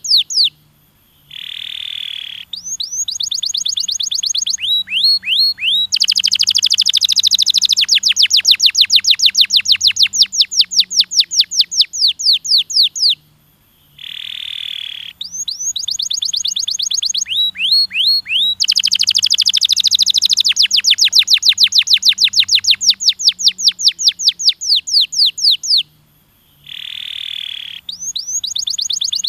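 Domestic canary singing: long rapid trills of repeated high, downward-sweeping notes, broken by a short buzzy phrase. The same sequence of trills and buzz comes round about every twelve seconds.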